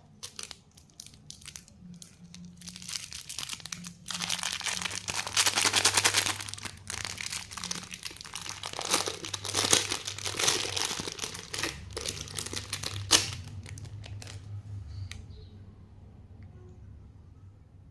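Plastic lollipop wrapping crinkling and tearing as it is handled and unwrapped. Scattered crackles build to a dense, loud crinkling with a few sharp snaps, then die away near the end.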